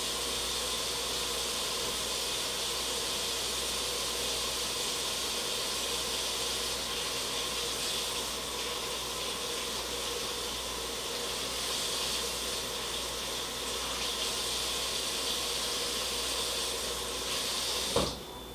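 Water running steadily from a tap in a steady hiss, shut off with a short knock near the end.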